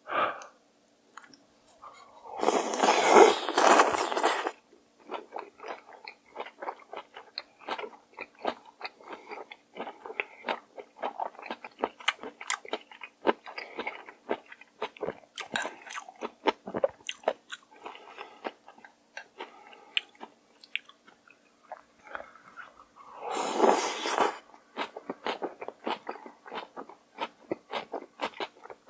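Close-miked eating of cold raw-fish soup (mulhoe) with noodles, raw seafood and shredded vegetables: rapid wet crunching and chewing clicks throughout, with two loud slurps, about two and a half seconds in and again about twenty-three seconds in.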